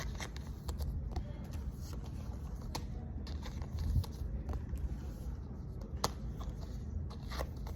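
Pokémon trading cards and plastic card sleeves being handled: scattered light clicks and rustles over a low, steady rumble.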